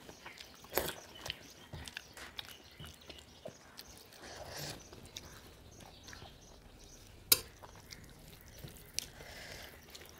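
Close-up eating sounds of two people eating rice and roti by hand: chewing and wet mouth smacking, with scattered small clicks and one sharp click a little after seven seconds in.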